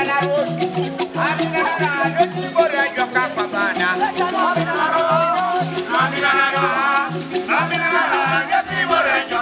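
Teso traditional group performance: several voices singing over rattles shaking a steady fast beat and a repeating low melodic line.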